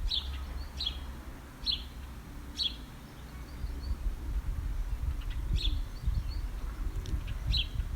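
A wild bird giving short, high chirps, repeated roughly once a second with a few gaps, over a low, steady background rumble.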